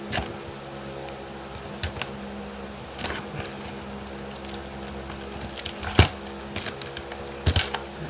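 Duct tape being pulled off the roll and torn into strips: a string of short, sharp rips and taps, about ten of them, irregularly spaced. A steady fan hum runs underneath.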